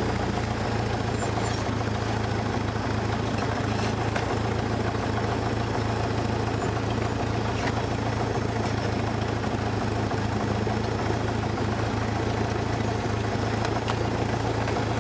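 Light aircraft's carbureted piston engine running at low power while taxiing, heard inside the cockpit as a steady, unchanging low hum.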